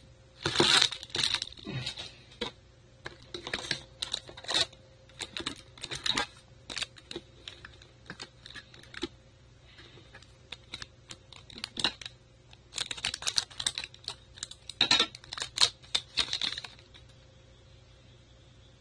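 Trading cards being handled close to the microphone: runs of quick, light clicks and rustles that come in clusters and stop near the end.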